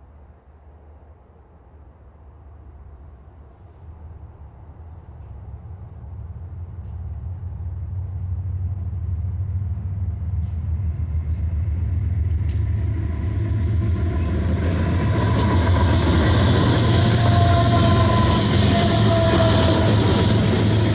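Norfolk Southern diesel locomotives hauling a double-stack intermodal freight train, approaching and passing close by. The low engine rumble grows steadily louder, then wheel-and-rail noise from the passing locomotives and stack cars takes over in the last several seconds, with an intermittent high squeal.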